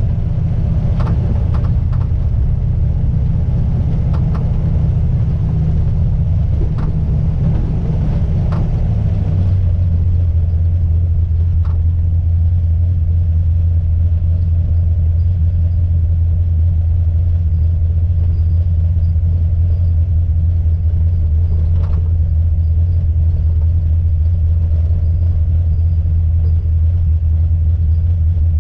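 A car driving, with the steady low drone of engine and road noise, and sharp single clicks from the rear over bumps, several in the first nine seconds and two more later. The owner cannot find the cause and suspects the coilovers.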